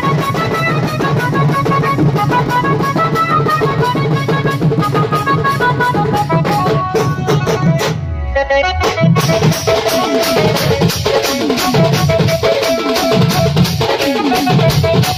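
Dance music with a steady, fast drum beat under a melody line. A little past eight seconds in, the beat drops out for about a second into a muffled sweep, then comes back in full.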